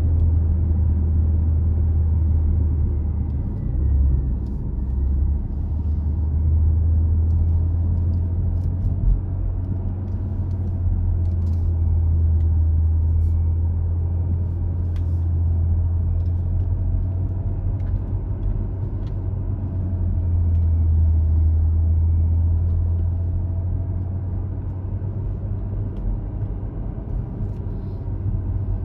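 A car driving along: the engine and tyres make a steady low drone that swells and eases slightly, with a few faint clicks.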